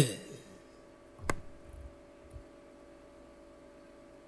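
Quiet room with a faint steady hum, just after a man's loud vocal noise cuts off at the start; a single sharp click about a second in.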